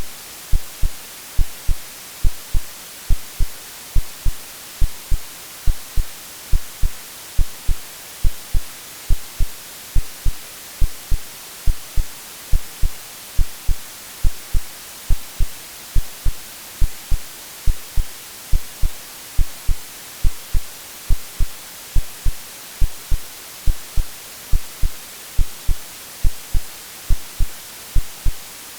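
AI-generated heartbeat over steady white noise. The heartbeat is a low, regular double thump, a lub-dub a little more than once a second, set against an even hiss.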